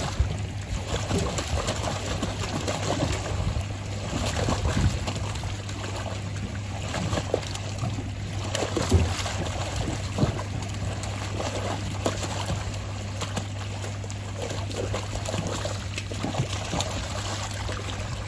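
Water gushing out of a large corrugated hose into a pond, splashing continually as live trout are flushed out with it, over a steady low hum.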